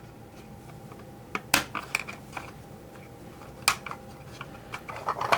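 Hard plastic parts of a 1984 G.I. Joe Cobra Stinger toy clicking and tapping as a door is fitted and snapped on: a scatter of short, sharp clicks, the loudest about a second and a half in and near four seconds in.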